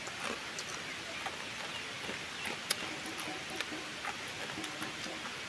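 Faint outdoor ambience: a steady hiss with scattered small clicks and ticks, one sharper click a little under three seconds in.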